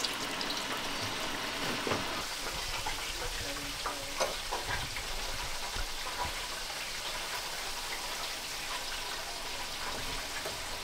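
Chicken deep-frying in the oil of an electric deep fryer, a steady bubbling sizzle. A few light knocks sound between about two and six seconds in.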